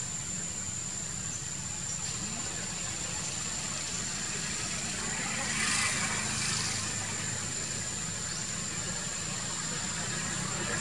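A steady low mechanical hum, like an engine idling, runs under a thin steady high-pitched whine. There is a brief brighter sound about halfway through.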